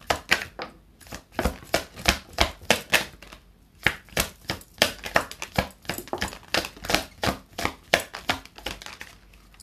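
A deck of tarot cards being shuffled by hand: a quick, uneven run of card slaps and clicks that stops near the end.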